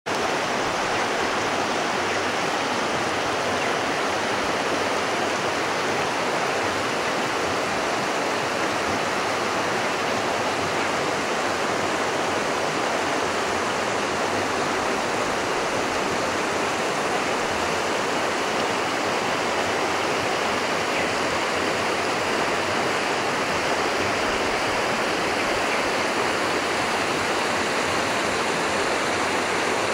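Steady rush of flowing river water, an even hiss that holds unchanged throughout.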